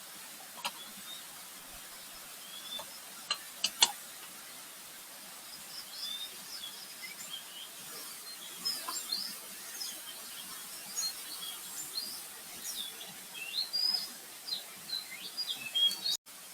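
Forest birds chirping: many short, quick calls overlapping from about six seconds in, over a steady hiss. A few sharp clicks come in the first four seconds, the loudest just before four seconds.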